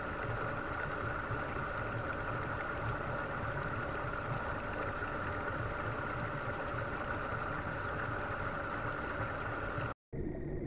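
Steady underwater hum and hiss of an aquarium tank's water pumps and circulation, heard through an underwater microphone. It cuts out abruptly about ten seconds in, then a duller hum resumes.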